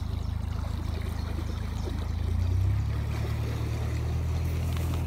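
Canal narrowboat's engine running with a low, steady hum as the boat passes; its note shifts and grows a little louder about two and a half seconds in.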